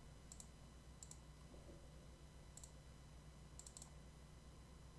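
Faint computer mouse clicks, a few of them in quick pairs, spread over a few seconds against near silence and a low steady hum.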